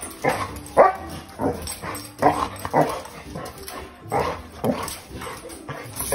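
A dog barking repeatedly: about ten short barks at an uneven pace.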